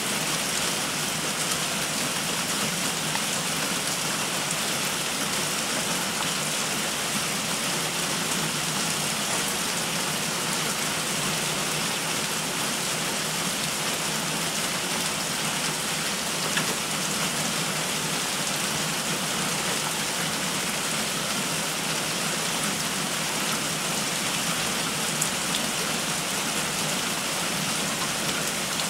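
Heavy rain falling steadily on tree leaves, a constant even hiss.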